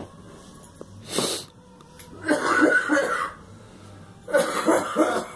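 A girl coughing in two bouts of several harsh, voiced coughs each, the first about two seconds in and the second near the end, with a short noisy breath about a second in.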